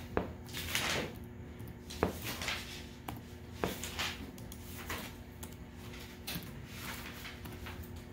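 A few sharp clicks a second or two apart, with short rustling hisses between them, over a steady low electrical hum.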